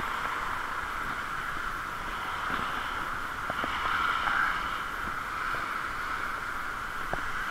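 Bicycle riding on a wet street: a steady hiss of tyres and moving air, with a few faint clicks from the bike.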